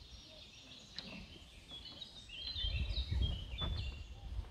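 Several small songbirds chirping and trilling in quick high notes. A low rumbling noise, louder than the birds, comes in about halfway through and fades near the end.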